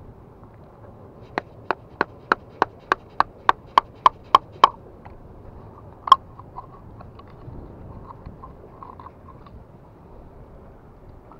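Pliers used as a hammer on a screwdriver, chipping oysters off rock: a quick run of about a dozen sharp, ringing metal taps, about three a second, then one louder knock and a few faint clicks.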